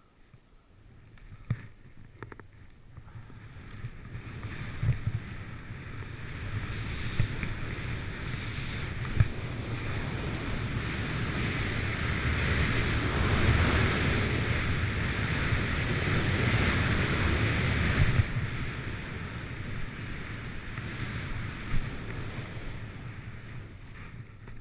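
Snowboard sliding through powder snow: a steady rush of the board on the snow mixed with wind on the microphone, building over the first few seconds, strongest midway and easing near the end, with a few short thumps.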